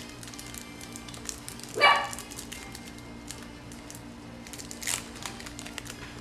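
A dog barks once, briefly, about two seconds in. Around it are faint rustles and clicks of foil card packs being handled.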